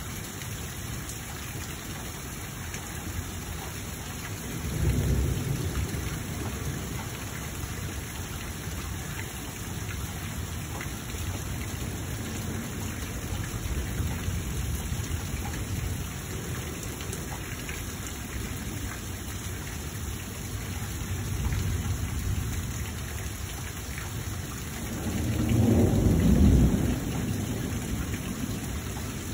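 Steady rain with rolling thunder. A low rumble comes about five seconds in, weaker ones follow in the middle, and a louder, longer rumble comes near the end.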